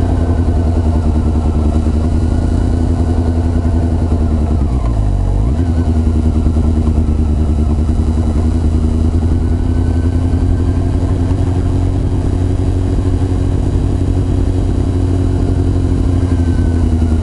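Honda CB400 Super Four's inline-four engine running as the bike rides at low speed. Its pitch dips and recovers about five seconds in, then holds fairly steady.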